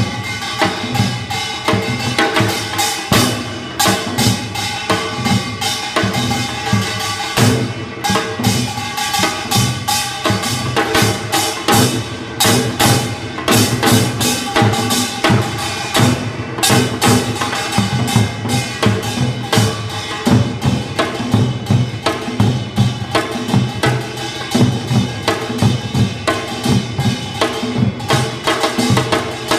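Korean traditional percussion ensemble playing: janggu hourglass drums and buk barrel drums struck in a fast, dense, continuous rhythm, with a steady metallic ringing over the drumming.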